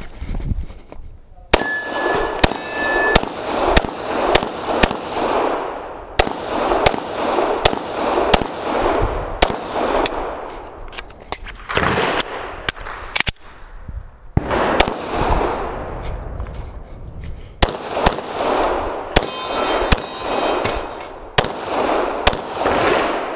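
Pistol shots fired in quick strings, sharp cracks each followed by echo, with short pauses between strings. A few hits ring on steel targets, a short metallic ring after some shots, near the start and again near the end.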